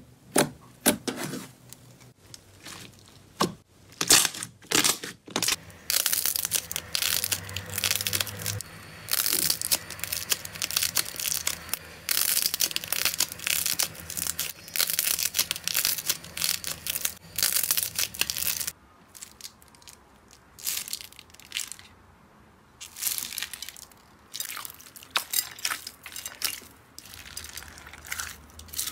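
Hands pressing, squeezing and pulling slime, making sticky pops, crackles and crunches. The crackling is dense and nearly continuous for most of the time, then thins to scattered pops about two-thirds of the way through.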